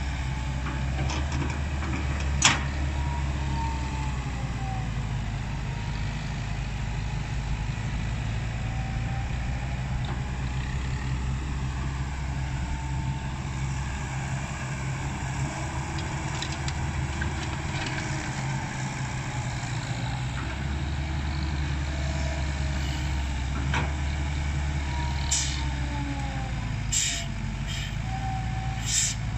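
Komatsu hydraulic excavator working, its diesel engine running steadily under load with a faint whine rising and falling as the hydraulics move. There is a single sharp knock about two and a half seconds in, and several short hissing or clanking bursts near the end.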